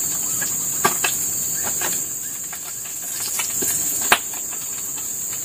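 Insects chirring in a steady high drone, over scattered sharp crackles and pops from fish frying in hot oil in a wok over a fire. One louder pop comes about four seconds in.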